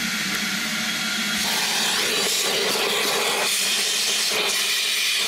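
Loud steady hiss from a detailing cleaning tool worked into a car's center console compartment, its tone changing a couple of times.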